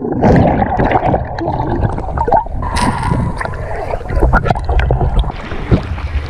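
Water splashing and bubbling right at a waterproof action camera as it dips under the lake surface and comes back up, with many short knocks and splashes.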